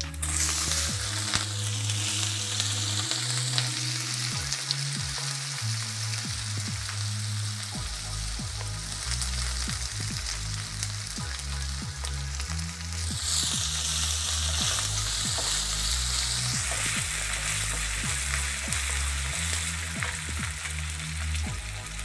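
Fennel seeds, garlic, green chilli and ginger sizzling in hot oil in a wok, with the spatula stirring and scraping. The sizzling swells louder for a few seconds past the middle. Low background music plays underneath.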